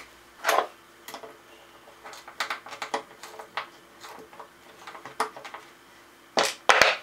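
A wooden dowel being levered out of its hole with a claw hammer and then pliers bearing on a plywood scrap: a string of small clicks, creaks and scrapes of metal on wood, with louder scraping bursts about half a second in and again near the end, the last with a knock.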